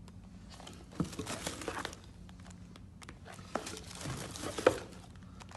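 Packaging being handled during an unboxing: irregular crinkling and rustling with a few sharp clicks and knocks, the loudest about a second in and again past the four-second mark.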